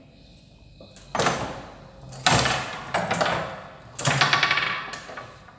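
Foosball being played on a wooden table with plastic players on steel rods: three sharp knocks about a second or more apart, the ball struck and the rods and frame knocking, each followed by a rattle that dies away.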